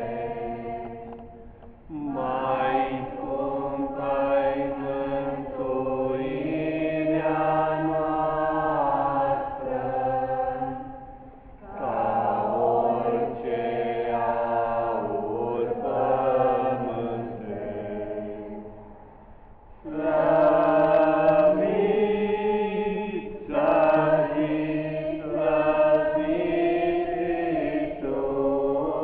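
A small group of young women singing a Romanian religious hymn together in unison, unaccompanied, in long sustained phrases with short breaks between them about 2, 11 and 19 seconds in.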